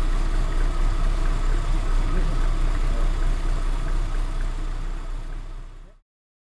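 Wind buffeting the camera's microphone: a steady low rumble with hiss that fades out about six seconds in.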